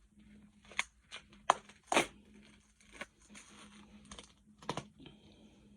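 A parcel being opened by gloved hands: scattered sharp clicks and snaps of packaging being handled, the loudest two close together about one and a half to two seconds in.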